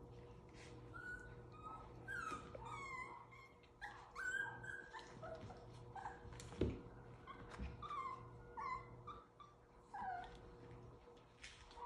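Havanese puppies at seven weeks whimpering and yipping in many short, high calls, several of them falling in pitch, with light taps and knocks from their play.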